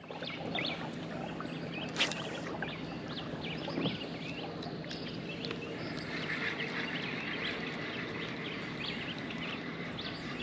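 Many small birds chirping and calling irregularly over a steady outdoor background with a faint low hum, with one sharp click about two seconds in.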